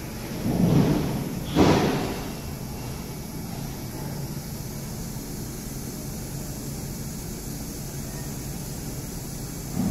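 Metal handling at a CNC vertical machining centre: a short sliding scrape, then a sharp metal knock about a second and a half in, and a lighter knock near the end, over the machine's steady hum.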